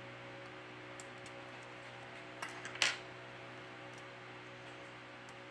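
Light clicks of metal tweezers on a smartphone's internal parts, then a short metallic clatter about halfway through, over a steady low hum.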